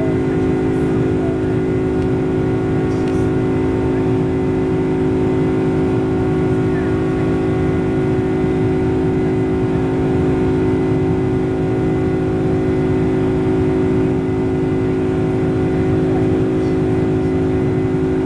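Boeing 747-400's General Electric CF6-80C2 turbofans at climb power after take-off, heard inside the cabin: a steady drone of several held tones over a dense rush of air noise, without change.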